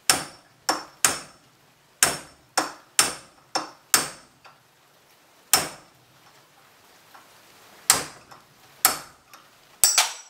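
Hammer blows on a steel punch driving the old wheel bearing's inner race off a Ford Festiva front hub: about a dozen sharp metallic knocks, each with a short ring, at an uneven pace with longer pauses in the middle. Two quick blows near the end leave a clear ringing tone.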